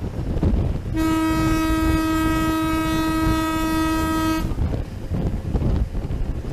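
Horn of a Henschel-Thyssen-built SLR Class W3 diesel locomotive sounded in one steady single-tone blast of about three and a half seconds, starting about a second in, as a warning on the approach to a level crossing. Wind on the microphone and the rumble of the moving train run underneath.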